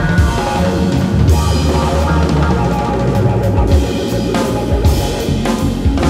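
Live instrumental music from a keyboard, upright acoustic bass and drum kit trio playing together.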